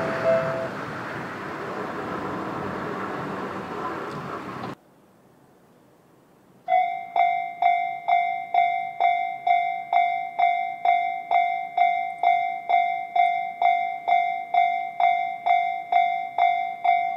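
A passing train fades, then cuts off sharply. After a brief pause, a Japanese railway level-crossing alarm starts ringing, about two strokes a second, warning of an approaching train.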